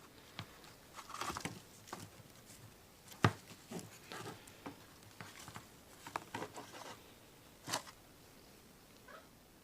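Handling noise from pieces of bitumen sound deadener: irregular small taps, crinkles and clicks, with a sharper click about three seconds in and another near the end.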